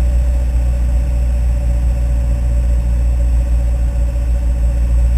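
Small airplane's engine and propeller droning steadily, heard from inside the cabin: a deep, even rumble with a steady mid-pitched tone over it.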